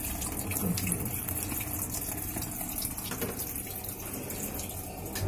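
Water pouring in two streams from the inlet into the drum of a Videocon Digi Zaara Plus top-loading washing machine as it fills at good pressure, a steady splashing.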